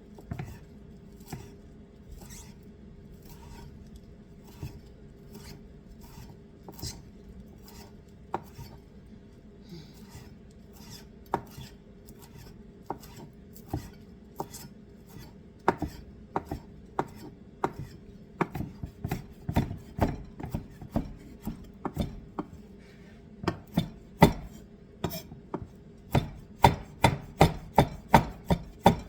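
Kitchen knife chopping on a cutting board, mincing herbs. The strokes are scattered and light at first, then about halfway through they become louder and more regular, reaching about two chops a second.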